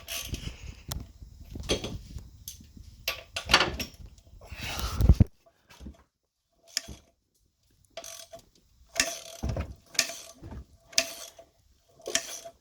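Irregular metallic clicks and clanks, some with a short ring, from the exposed timing chain and its guides on a Chevy Cobalt's 2.2 L engine as the chain is worked by hand. The loose chain slaps its guides, which the owner puts down to a probably stretched chain. The clatter comes in clusters, with a quiet pause of about three seconds in the middle.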